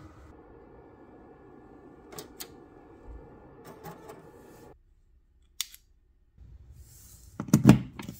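A USB micro SD card reader being pushed into a panel-mounted USB socket: a short cluster of plastic clicks and knocks near the end. Before it, a few faint clicks over a steady hum.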